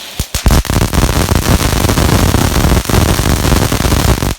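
Gemstone Fireworks 4-inch crackling lava fountain in its crackle phase: a loud, dense crackling of many rapid pops. It starts about a quarter second in and stops abruptly near the end, leaving a few scattered pops.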